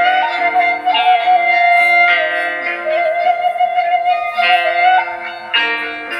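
Background instrumental music: a held, wavering lead melody over plucked-string chords.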